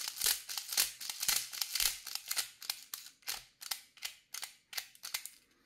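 Airsoft BBs being pushed from a speedloader into a Begadi Pro 150-BB AR midcap magazine: a quick, uneven run of small sharp clicks that grows sparser and stops near the end.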